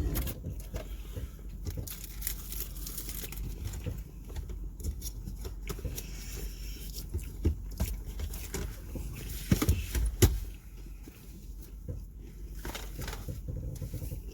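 Eating and handling of fast-food wrappers inside a car: small crinkles, rustles and clicks over a low steady rumble from the car, with a few louder knocks about ten seconds in.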